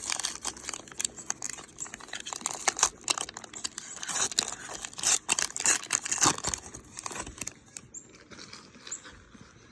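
Plastic wrapper of a 2020 Topps Heritage trading-card pack crinkling and tearing as it is opened, dense for about seven seconds, then dying down to light rustling.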